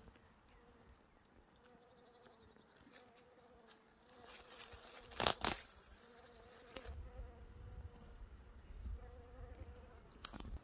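Bees buzzing around flowering thyme, a faint wavering hum that comes and goes. A sharp rustle of handled plant stems about five seconds in is the loudest sound, with a smaller one near the end.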